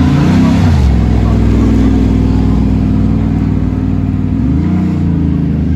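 Aston Martin Vantage GT3 race car's twin-turbo V8 running at low revs as the car rolls slowly past. There is a short rise in revs right at the start and another near the end.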